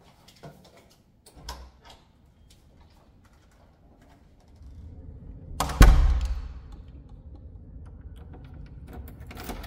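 Wooden apartment front door being opened and shut: a few small clicks and rattles, then a steady low hum once it opens, and a single heavy thud about six seconds in, the loudest sound.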